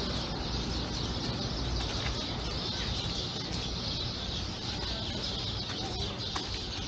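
Outdoor ambience: a steady wash of noise with a rumbling low end, and birds calling.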